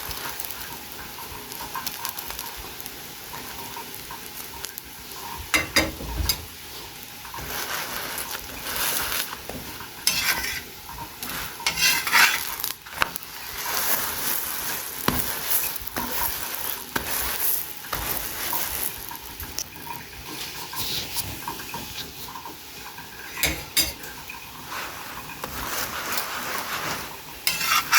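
Ginger carrot pancake batter frying in oil in a pan, a steady sizzle, with a spatula now and then clinking and scraping against the pan.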